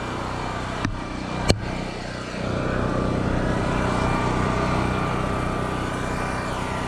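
A small gas engine running steadily, getting louder about two and a half seconds in. Two sharp clicks come in the first two seconds.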